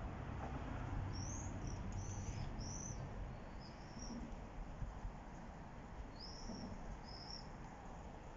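Small bird chirping: short, high, arched chirps, four in the first half and two more near the end, over a steady low rumble.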